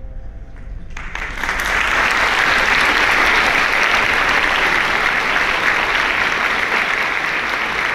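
Audience applause that breaks out about a second in, swells quickly and then holds steady.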